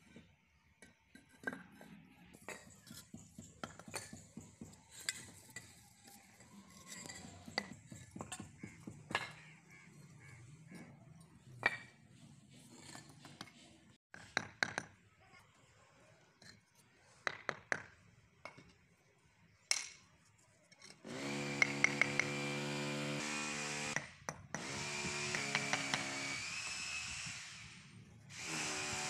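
Brick hammer tapping clay paving bricks down into a wet mortar bed: irregular light knocks. About twenty-one seconds in, an electric power tool motor starts running in three runs of a few seconds each, cut off and restarted between, louder than the tapping.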